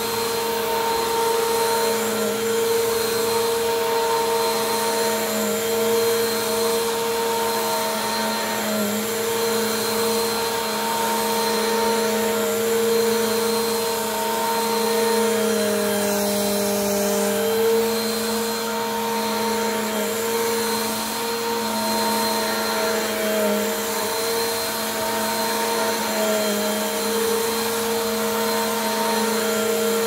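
Bissell PowerForce Compact upright vacuum cleaner running on a rug, its filters freshly cleaned: a steady motor hum and whine over the rush of air, the pitch dipping briefly about halfway through.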